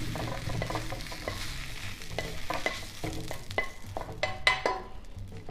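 Spatula scraping and clinking against a frying pan as pan-fried battered cauliflower is stirred and lifted out, over a light sizzle of hot oil. A run of short knocks and clinks, the loudest about four and a half seconds in.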